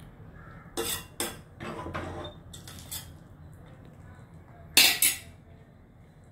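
A spoon clinks and scrapes against a stainless steel pot while stirring a thick chicken masala. There are several clinks in the first three seconds and two loud knocks close together about five seconds in.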